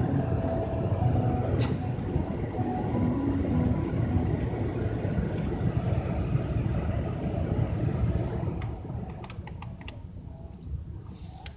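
Car cabin noise while driving on a snow-covered road: a steady low rumble of engine and tyres, which grows quieter about eight seconds in, followed by a few short sharp clicks near the end.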